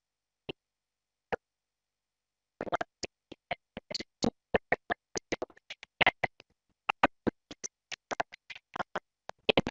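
A voice over a video call, broken into short garbled fragments by a dropping connection. A second or two of near silence with a few clicks comes first, then choppy stuttering snippets of talk.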